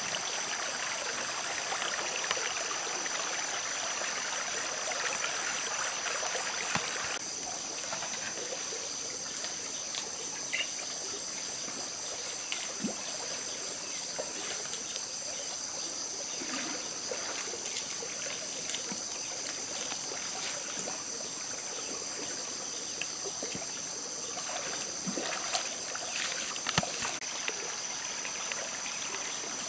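A shallow stream trickling over rocks, under a steady high insect trill. The water noise drops a little about seven seconds in, and a few short clicks come near the end.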